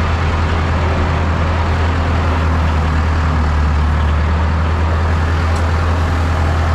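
Fendt tractor's diesel engine running steadily at raised revs on the hand throttle, driving a mower through the engaged power take-off: a constant deep hum with no change in pitch.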